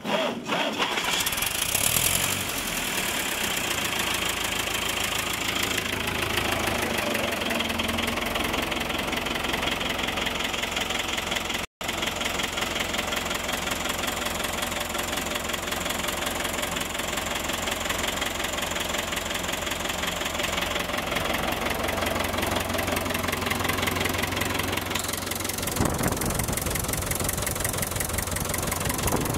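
Fordson Power Major tractor's four-cylinder diesel engine starting up and then idling steadily.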